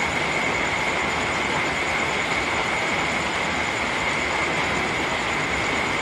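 Soft rain falling steadily: an even hiss with no separate drops or changes standing out.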